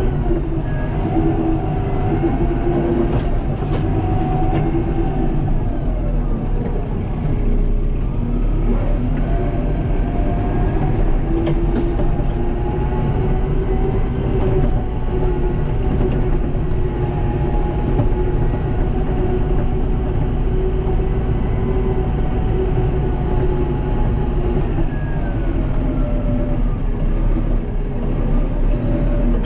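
Kubota M7060 tractor's four-cylinder turbo diesel engine running steadily, heard from inside the cab. Its pitch slides down and up a few times as the revs change.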